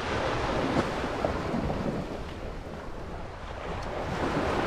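Wind buffeting the microphone over the wash of sea waves: a rushing noise with a low rumble that rises and falls.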